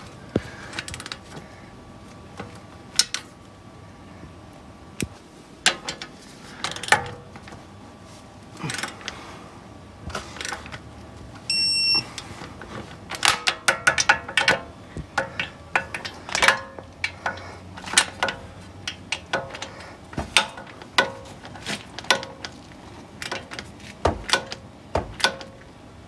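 Ratcheting torque wrench clicking in runs as the hub bearing's 12-point bolts are driven down, with a short electronic beep about twelve seconds in, the wrench signalling that the set torque has been reached.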